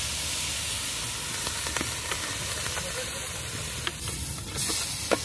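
Hot spiced onion-tomato masala in a metal pot sizzling steadily just after water has been poured into it, while a spoon stirs it, with a few clicks of the spoon against the pot, the sharpest near the end.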